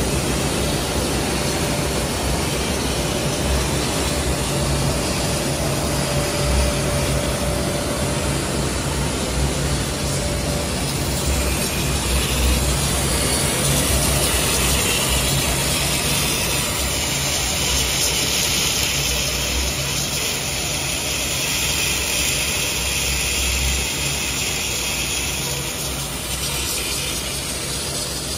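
Extrusion laminating line running, with a steady low mechanical hum and drone from the machine. A faint steady tone sits over it for the first third, and a brighter hiss comes up about twelve seconds in.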